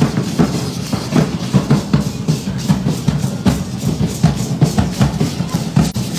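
Danza drums: a large bass drum and a smaller snare-type drum beating a quick, steady rhythm together.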